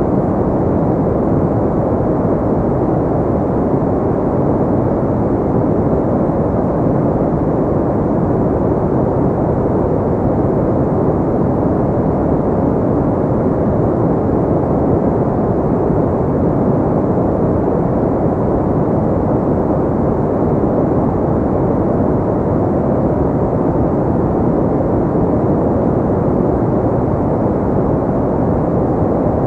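Steady, unvarying synthetic pink noise: an even, low rush with little treble, and no change in level.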